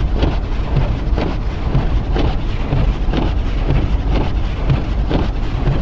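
Car road noise from inside the cabin at highway speed, a steady low rumble, with the windshield wipers sweeping about once a second across an icy windshield; the driver's-side wiper blade is worn.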